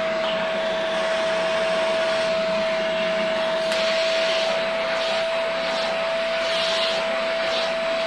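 YikTOL pet grooming vacuum running on its third, highest suction setting: a steady whine over a rush of drawn-in air.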